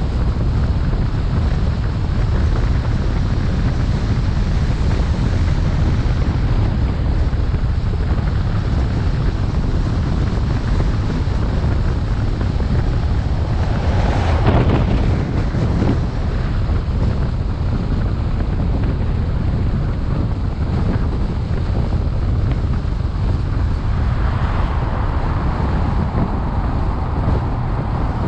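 Steady wind and road noise of a car being driven, the wind buffeting the microphone, with a brief louder swell about halfway through.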